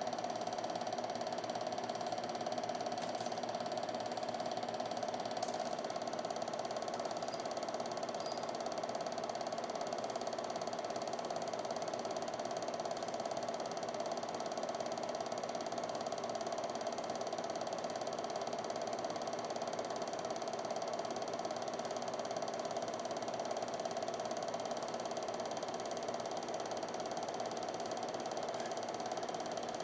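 Home-movie film projector running: a steady mechanical clatter from the film-advance mechanism with a constant tone, unchanging throughout.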